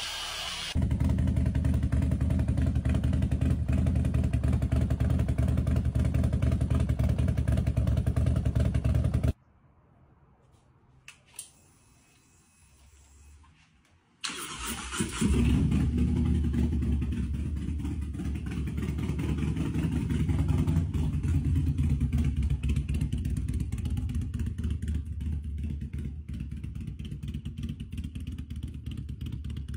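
Harley-Davidson Road Glide's V-twin engine running with a steady low rumble, then near silence for about five seconds. About halfway through the engine starts and runs on steadily as the motorcycle is ridden away.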